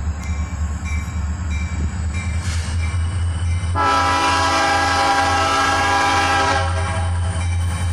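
Diesel freight locomotive approaching a grade crossing, its engine rumbling steadily, with the air horn sounding one long chord about four seconds in that holds for nearly three seconds and then stops. A bell dings at a steady pace underneath.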